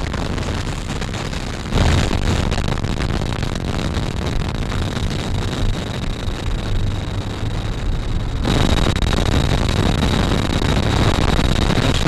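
Steady vehicle noise of a car on the move, a dense rumble with road and wind noise. It jumps abruptly in level about two seconds in and again past eight seconds, with a faint high whine added after the second jump.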